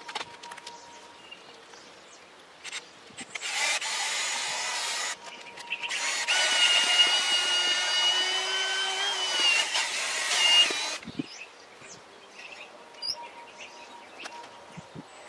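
Cordless drill spinning a chimney-sweep brush on rods inside a stainless steel chimney pipe to scrub out soot: a short run of about a second and a half, then a longer run of about five seconds with a steady motor whine. Light handling clicks follow.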